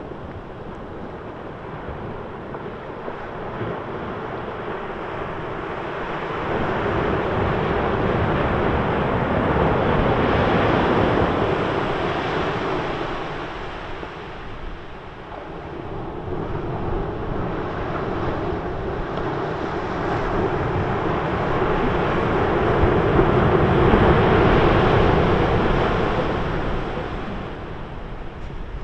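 Sea waves surging and washing, swelling loud twice and easing off between, with wind buffeting the microphone.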